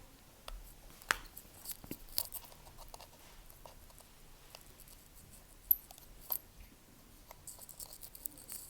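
Scattered small clicks and taps of hand tools and parts being handled during an iPhone 7 Plus screen replacement, with one sharper click about a second in and another a little past the middle.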